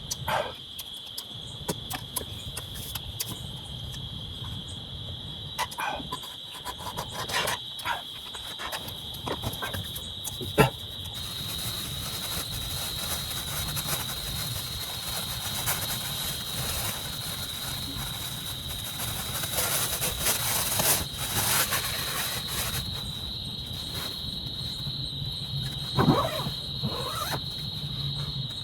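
Crickets chirring steadily in a high, unbroken chorus, with scattered clicks and knocks close by, the sharpest about ten seconds in. From about twelve seconds a high hiss swells under the chorus and eases again after about twenty-two seconds.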